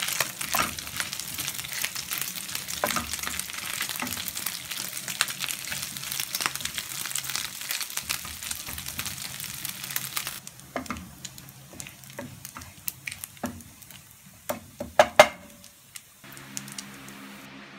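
Diced bacon sizzling in hot oil in a nonstick frying pan while a wooden spatula stirs and scrapes it. About ten seconds in the sizzle dies down, leaving scattered taps of the spatula on the pan and a few louder knocks about fifteen seconds in. Near the end a low steady hum comes in.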